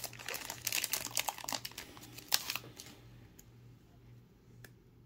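Crinkling of a Panini Elite basketball card pack's foil wrapper as it is handled and opened, dense for about the first two and a half seconds, then only a few faint ticks.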